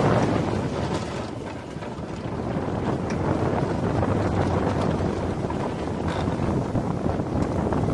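Wind rushing over an onboard microphone as an Intamin suspended catapult roller coaster train speeds along its track, with a low rumble underneath. The rush eases briefly about a second in, then builds back and stays steady.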